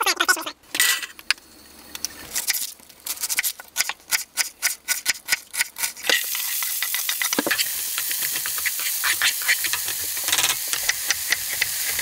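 Knife chopping quickly on a wooden cutting board, then about halfway through diced onion is scraped into a hot frying pan on a portable gas stove and starts sizzling steadily, with light crackles.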